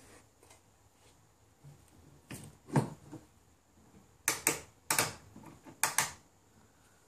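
Hard plastic Little Tikes toy kitchen being handled: a knock about two and a half seconds in as the toy oven door is pushed shut, then a run of sharp clicks as a knob on the side of the toy stove is turned.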